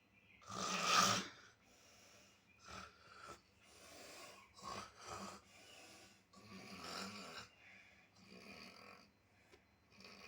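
A person snoring: a loud rasping snore about half a second in, then softer snores at intervals of roughly one and a half to two seconds.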